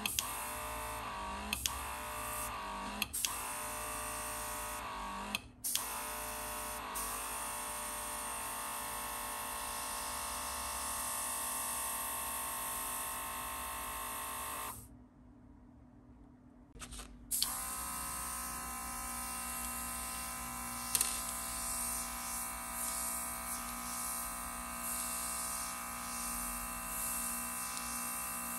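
Cordless rechargeable airbrush compressor running with a steady small-motor whine. In the first few seconds its pitch dips and recovers several times, each with a little click, as the load on it changes. About halfway through it cuts out for about two seconds, then starts again with a click.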